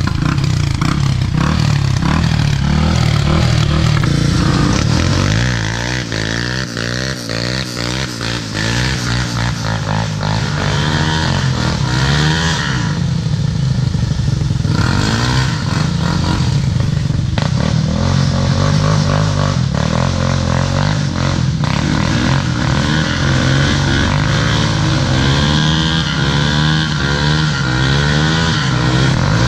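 ATV engine running and revving unevenly under throttle on a dirt trail, easing off for a few seconds about six seconds in and then picking up again, with scattered knocks.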